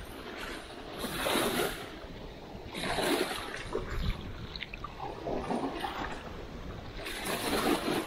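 Small waves washing in at the water's edge: four rushes of water, each swelling and fading, about two seconds apart.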